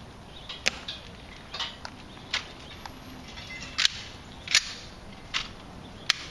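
A series of about eight sharp, irregularly spaced clacks from a ceremonial rifle drill. The sentinel's white-gloved hands slap and move his wooden-stocked rifle during the guard-change rifle inspection.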